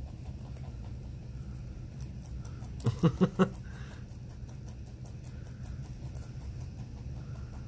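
Two pet rabbits chewing parsley: faint, fast crunching clicks over a steady low hum. About three seconds in, a person chuckles briefly in four quick pulses, the loudest sound.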